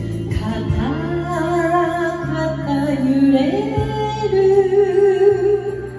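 Woman singing an enka song into a microphone over a karaoke backing track, holding long notes with vibrato.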